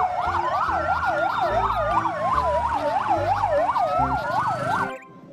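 Fire-truck siren sound: a fast up-and-down yelp, about four sweeps a second, layered over a slower rising and falling wail, cutting off suddenly near the end.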